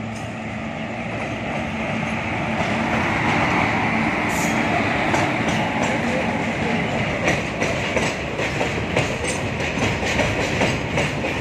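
WAG-7 electric goods locomotive running past with a steady hum and a dense rolling noise that grows louder over the first few seconds. From about seven seconds in, the open freight wagons behind it pass with a regular clickety-clack of their wheels.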